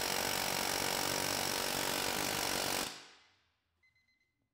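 Ingersoll Rand 114GQC medium-barrel air hammer running flat out on 150 PSI line pressure, a continuous rapid hammering of the bit against a steel test rig. It stops about three seconds in and the sound dies away.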